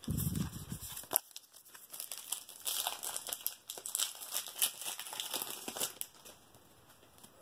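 Foil wrapper of a trading-card pack crinkling and tearing open, a run of dense crackling rustles that stops about a second before the end, after a low handling knock at the start.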